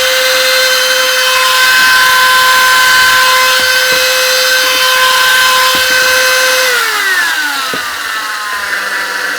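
Hart rotary tool running at high speed, a loud steady whine. About seven seconds in, its pitch glides down as the motor slows, holds lower, then cuts off suddenly at the end.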